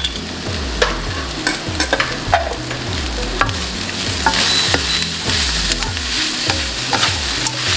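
Wooden spatula stirring and scraping boiled, mashed plantain through fried onions and spices in a nonstick wok, with irregular knocks of the spatula against the pan over a steady frying sizzle. The sizzle grows a little louder about halfway through.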